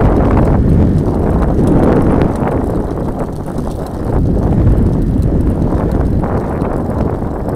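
Wind rushing over the microphone, with the rumble of a bicycle's tyres on rough, patched tarmac as it rolls downhill. The rush eases a little about two seconds in and picks up again about four seconds in.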